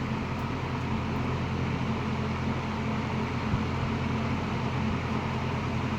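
1960s AMC two-speed box fan running smoothly on low speed: a steady rush of air over a low, even motor hum.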